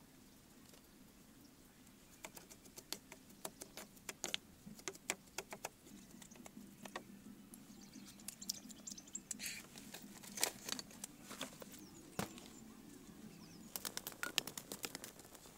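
Scattered light clicks and taps of a bamboo stick working food in a small bowl; near the end a denser run of crackles from a wood cooking fire.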